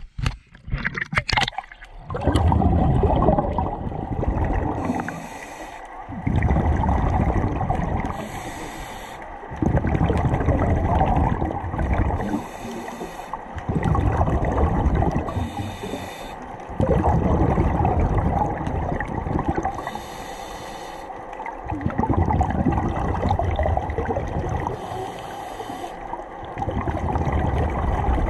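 Scuba diver breathing underwater through a regulator: a short hiss on each inhale, then a long rumble of exhaled bubbles, about six breaths in a steady rhythm. A brief splash about a second in as the microphone goes under.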